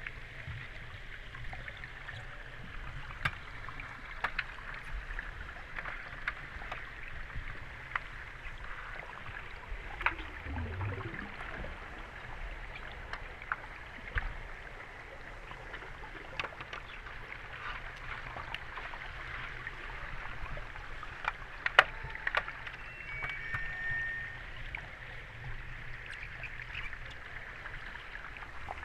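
Underwater pool ambience heard through a submerged camera: a steady hiss of churned water and bubbles from swimmers, broken by scattered sharp clicks and knocks of hockey sticks and puck against the pool floor. The sharpest knock comes about three-quarters of the way through.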